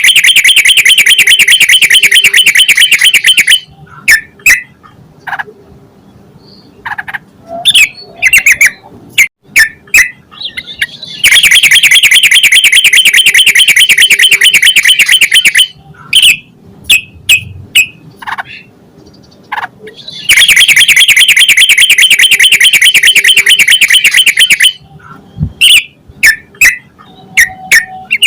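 Yellow-vented bulbul (trucukan) singing: three loud runs of rapid chattering notes, each about four seconds long, with short separate chirps in between.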